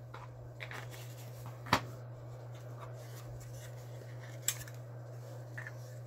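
Handling noise from boxed Zippo lighters and their cases: a few light clicks and taps, with one sharp click a little under two seconds in and another about four and a half seconds in, over a steady low hum.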